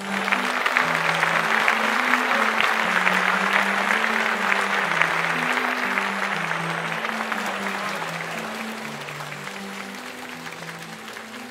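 Audience applause breaking out suddenly and slowly dying away, over a slow melody of low sustained notes from the show's music.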